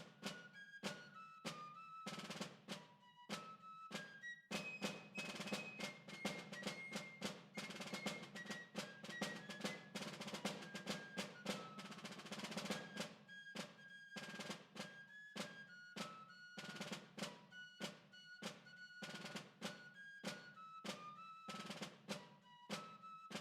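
Background music: a percussive piece of evenly spaced drum-like strikes, about two a second, under a melody of short pitched notes.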